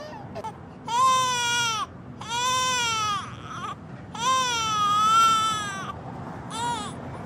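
Infant crying in long wails, four cries with short breaths between them, the last one brief.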